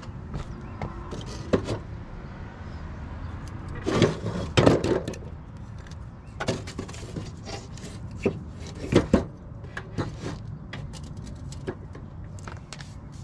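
A wooden block knocking and scraping against the rusty steel deck and blade of a push mower as it is wedged in to hold the blade, with scattered taps and clinks of metal. The loudest knocks come about four seconds in and again about nine seconds in.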